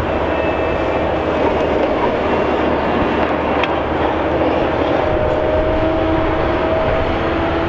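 Tracked log processor running, its diesel engine and hydraulics making a steady, loud noise with a whine that rises slightly about five seconds in.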